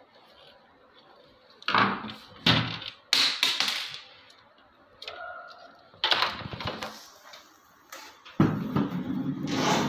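Handling noise from unplugging white plastic wire connectors inside a water purifier's plastic housing: a series of short rustling, clacking bursts from the connectors, wires and casing being moved.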